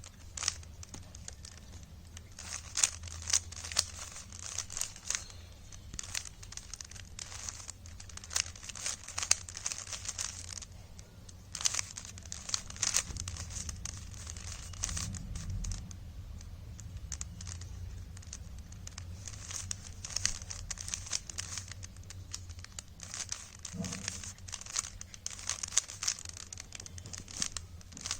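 3x3 Rubik's cube being turned rapidly by hand: a dense, irregular run of small plastic clicks and clacks as the layers are twisted in quick succession.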